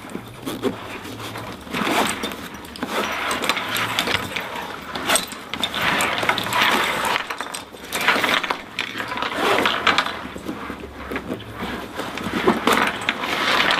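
A zip being run on a nylon military day sack, with the pack's fabric rustling and scraping and its buckles and hardware clinking as it is handled.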